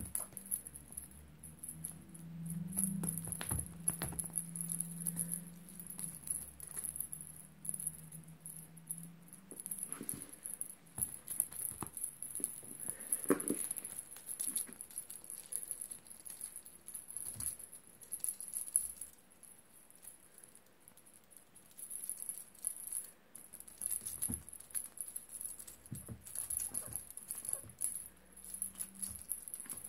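An exotic shorthair kitten playing on a quilted bedspread: irregular soft scrapes, scuffs and rattly taps as its paws and claws scrabble at the fabric and bat a feather toy.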